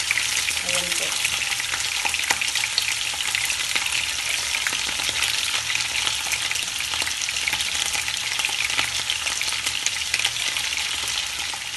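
Chicken wings sizzling as they pan-fry in hot oil, a steady hiss with dense crackling pops, at the browning stage before they are simmered.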